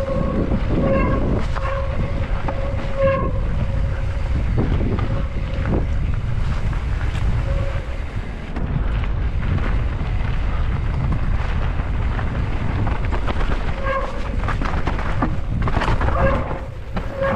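Mountain bike descending rough dirt singletrack: wind buffeting the helmet-mounted microphone and the bike rattling over the trail, with a steady high buzz from the rear hub's freewheel that comes and goes while the rider coasts.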